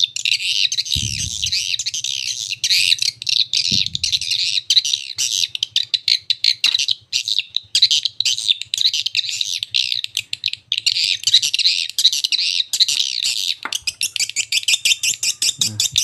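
Recorded swiftlet lure call, a dense run of rapid high chirps and twitters made to sound like real swiftlets in the mating season, played loudly through a pair of horn tweeters on a swiftlet-house amplifier to draw swiftlets into a nest house. A low hum runs underneath.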